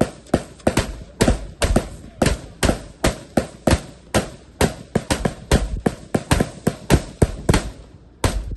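Rifle gunfire: a rapid string of single shots, roughly three a second and unevenly spaced, each one sharp and loud.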